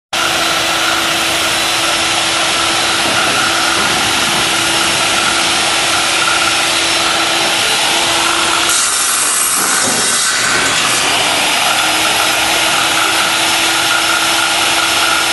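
Electric power saw running continuously with a steady whine, its sound changing briefly about nine seconds in.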